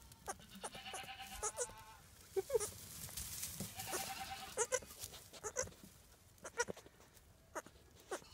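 Newborn Angora kid goat giving two soft, faint bleats, one about a second in and one about four seconds in, with small rustles and clicks as it noses about in the straw.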